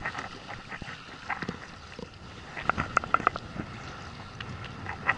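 Wind on the microphone and sea noise around a small inflatable boat, with scattered short clicks and a quick run of clicks about three seconds in.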